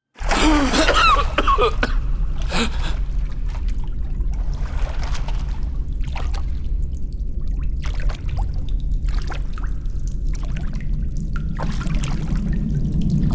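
Cave ambience of trickling and dripping water over a steady low rumble, starting abruptly after silence. A flurry of quick warbling glides comes in the first couple of seconds, and scattered drips and splashes follow.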